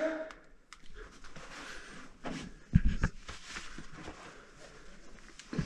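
Handling and movement noise in a small stone chamber: scattered small knocks and shuffles, with a low thump about three seconds in and another near the end.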